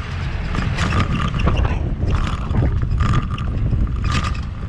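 A heavy-duty tow truck's engine rumbling under way, with short metallic clanks and rattles about once a second from the wrecker's loose chains and wheel-lift hardware.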